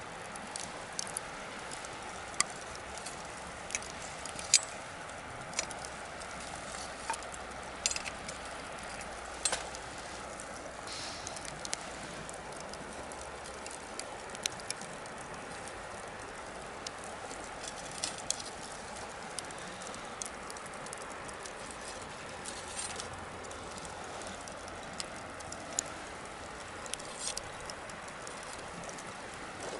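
Bonfire crackling: irregular sharp pops and snaps over a steady low hiss, the loudest pop about four and a half seconds in.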